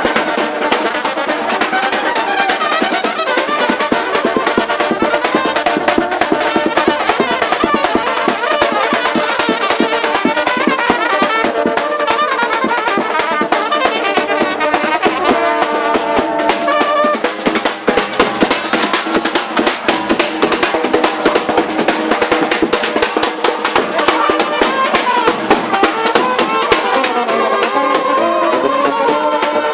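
Balkan brass band playing a lively dance tune, trumpets carrying the melody over a steady drum beat.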